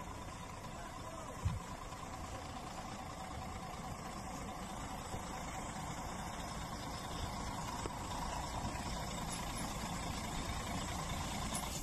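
A vehicle engine running steadily, slowly getting louder, with one brief thump about a second and a half in.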